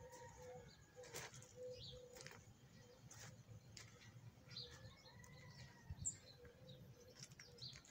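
Faint, scattered bird chirps and calls over a very quiet background.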